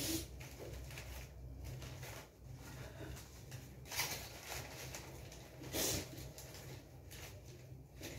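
Crumpled paper sheets rustling and crinkling as they are handled by hand, in several short bursts, over a low steady hum.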